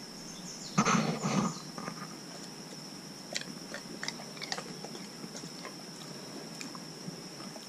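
A dog biting into and chewing a dried banana chip: a loud crunch about a second in, then scattered small crunching clicks as it chews.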